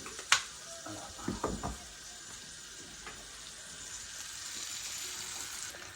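Butter melting and sizzling in a pan on low heat, a steady hiss, with a sharp click about a third of a second in and a few soft knocks around a second and a half in.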